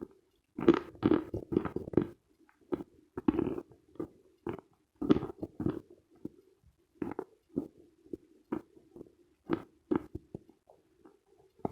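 Close-miked chewing of dense, dry Khrapovsky chalk: irregular crunches, densest in the first couple of seconds and sparser after, with softer mouth sounds between.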